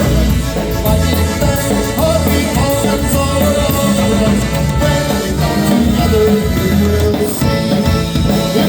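Live polka band playing: brass horns holding melody lines over a steady bass and drum beat.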